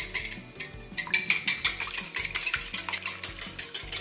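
Wire whisk beating an egg in a ceramic bowl: a rapid, even run of clicks as the wires knock against the bowl, easing briefly near the start and picking up again about a second in.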